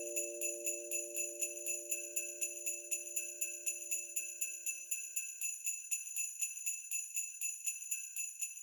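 Sleigh bells shaken in a steady rhythm, about four shakes a second, as closing background music. Under them is a held chord that fades out about six seconds in.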